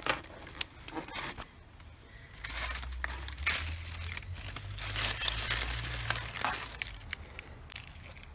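A perforated plastic bag of tulip bulbs crinkling as it is handled and the bulbs are taken out. A few sharp crackles come in the first second or so, and the crinkling is densest from about two and a half seconds in until about seven, over a low rumble.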